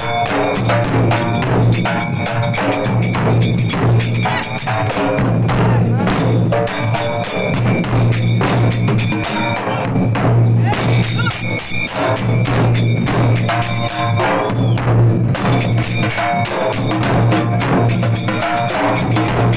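Several dollu, the large two-headed barrel drums of the Dollu Kunitha folk dance, beaten together in a dense, unbroken rhythm.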